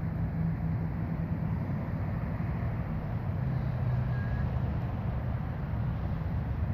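Steady low rumble with a droning hum underneath, even in loudness throughout.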